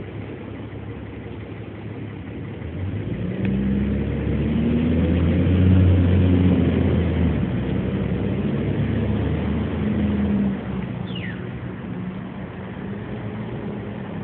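A motor vehicle's engine running with a steady low hum, growing louder about three seconds in and easing off after about ten seconds. A short, high, falling bird chirp comes late on.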